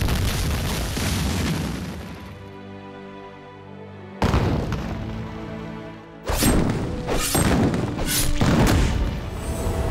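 Dramatic theme music mixed with explosion-like booms and heavy hits. The music eases to quieter held tones for a second or two, breaks with a sudden boom about four seconds in, then a run of loud hits comes from about six seconds on.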